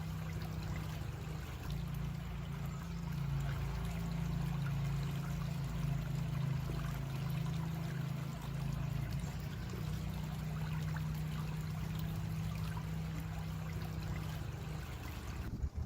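A creek's water running steadily, with a constant low rumble beneath the splashing.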